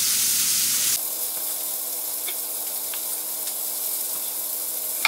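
Bacon-wrapped asparagus sizzling as it fries in a pan over medium-high heat, loud for the first second, then quieter after a sudden drop. A steady low hum runs under the quieter part, with a couple of faint knife taps on a plastic cutting board.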